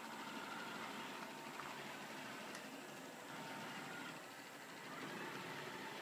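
Samsung VC RM84V Smart Tango robot vacuum cleaner running steadily as it drives across a wooden floor: an even whirring noise with a faint steady whine.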